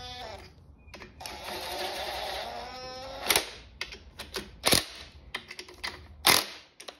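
Bolts being worked into the main bearing caps of a Holden grey motor block: a rattling whir for about two seconds, then several sharp metallic clicks.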